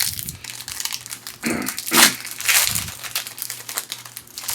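Foil wrapper of a baseball card pack crinkling and tearing as it is opened by hand, in irregular bursts with the loudest rustles about halfway through.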